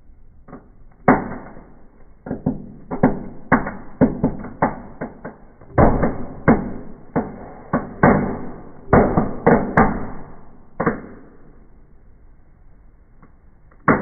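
Small indoor fireplace fireworks going off: crackling stars and fountains give an irregular run of sharp bangs and pops, about two dozen in ten seconds. They die down about eleven seconds in, with one more bang at the very end.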